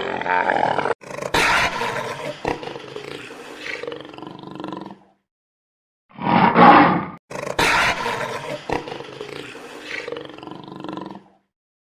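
Loud animal calls in a series of short cut-together clips, with two brief dead-silent gaps, one about five seconds in and one near the end.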